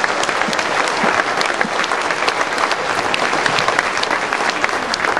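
A large audience applauding, many hands clapping together at once.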